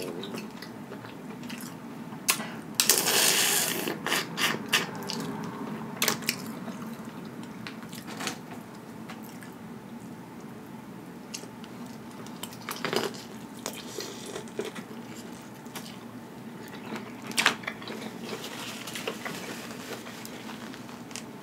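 Eating sounds of boiled crawfish: shells cracking and snapping in the fingers, wet sucking and slurping of the juice, and chewing, as scattered sharp cracks with a longer, louder wet stretch about three seconds in.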